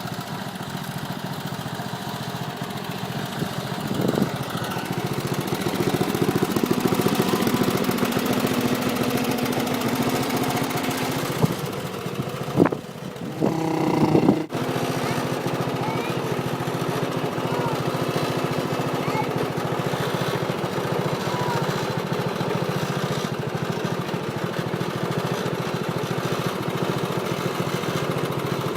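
Small tractor engine running steadily while it is driven, its pitch rising a little in the middle. A short pitched call, like a shout, stands out about halfway through.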